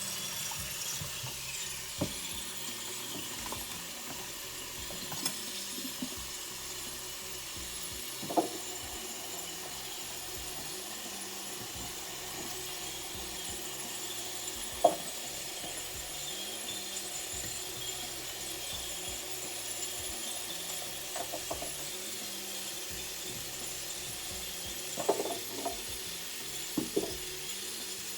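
Kitchen tap left running, giving a steady hiss of water, with scattered clinks and knocks of kitchenware: single ones about 2, 8 and 15 seconds in, and a small cluster near the end.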